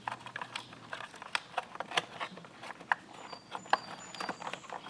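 Irregular light clicks and taps of a screwdriver and fingers working the plastic retaining clips of a car's backup camera housing to pop it free, with a couple of faint high squeaks a little past the middle.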